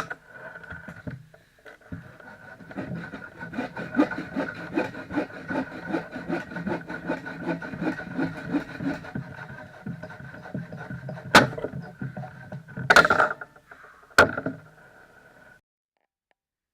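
Wood being sawn by hand for firewood, in steady back-and-forth strokes about two a second, followed near the end by three sharp cracks.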